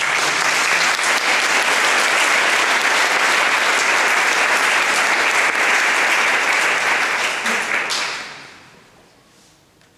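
Audience applauding, starting at once and dying away about eight seconds in.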